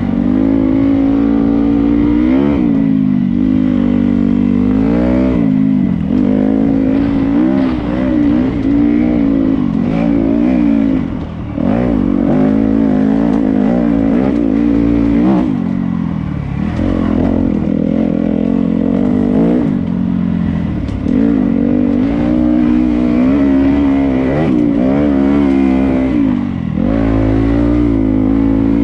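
Dirt bike engine running under load on a trail ride. The engine note rises and falls repeatedly as the throttle is worked, and drops off briefly a few times, around a third of the way in and near the end.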